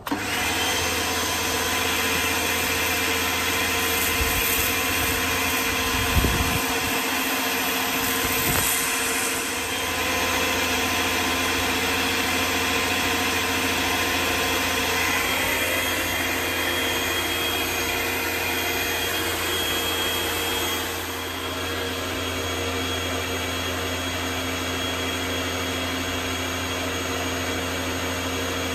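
Kärcher K3 electric pressure washer switching on suddenly, then running steadily: a motor-and-pump whine over the hiss of the spray. It is pushing water with patio detergent from its built-in dispenser at the lance's softest setting. A few short thumps come between about four and nine seconds in, and the sound drops slightly about twenty seconds in.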